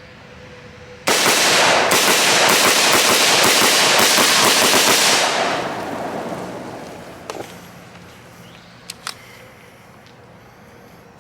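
AR-15 pistol with a Fostech binary trigger firing a fast string of shots, one on each pull and release of the trigger, starting about a second in and running for about four seconds before the echo fades.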